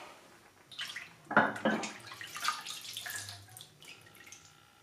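A hand sloshing in a bucket of Evapo-Rust rust remover, then the liquid streaming and dripping off a lifted cast-iron vise casting back into the bucket. The loudest splashes come about a second in, fading to fainter drips near the end.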